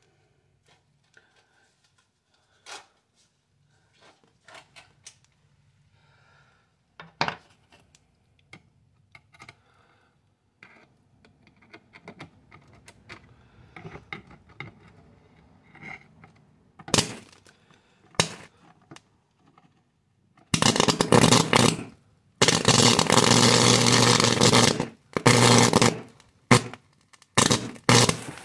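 Faint scrapes and clicks of a metal probe on a scorched circuit board. About two-thirds of the way in, loud crackling, buzzing bursts of high-voltage arcing start as the probe sparks across the board and sets it burning, in several bursts a second or two long with short breaks.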